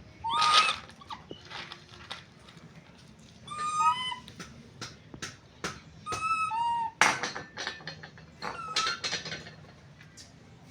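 Baby monkey giving short, high-pitched calls in clusters about every two to three seconds, each call bending up or down in pitch, with sharp clicks and rustles in between from the cat treats being shuffled on the floor.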